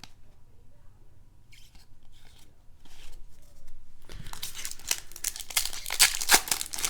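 Plastic-foil trading card pack wrapper being torn open and crinkled. It starts about four seconds in, after a few faint clicks from handling cards, and grows louder toward the end.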